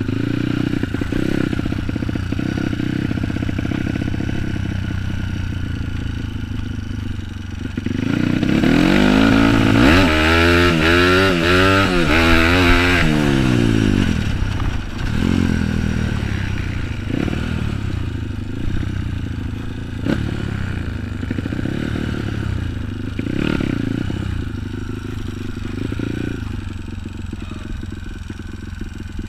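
Bored-up and stroked Kawasaki KLX single-cylinder four-stroke dirt bike engine under hard riding, its pitch climbing and dropping repeatedly with throttle and gear changes. It is loudest and highest-revving for several seconds in the middle.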